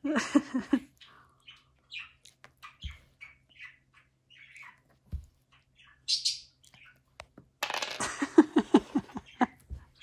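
Pet budgerigar chirping in short, quick calls, with one brighter call a little after six seconds. Near the end comes a quick run of lower vocal sounds.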